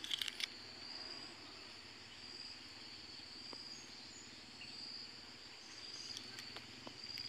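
Faint, steady high-pitched insect chirring that swells and fades in slow waves, with a few faint clicks in the first half second.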